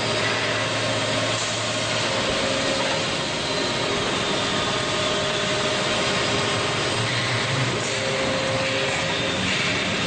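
Hydraulic power unit of a 1970 Williams & White 400-ton horizontal bulldozer press running: an Oilgear pump driven by a 60-horsepower electric motor gives a steady mechanical hum with a faint held whine.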